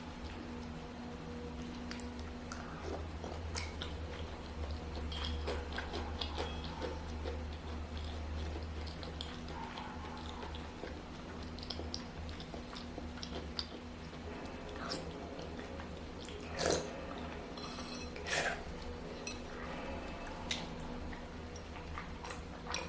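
A person chewing and eating food close to the microphone, with many small wet mouth clicks over a steady low hum. Two louder clicks come about three-quarters of the way in.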